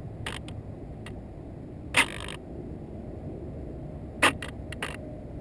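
A steady low rumble broken by scattered sharp clicks, with two louder short knocks, about two seconds and about four seconds in.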